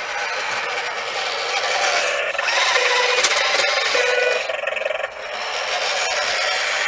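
Radio-controlled Unimog model truck with a snow plow driving through snow and passing close by: a whine of its motor and gears mixed with scraping. It is loudest from about two and a half to four and a half seconds in and dips briefly about five seconds in.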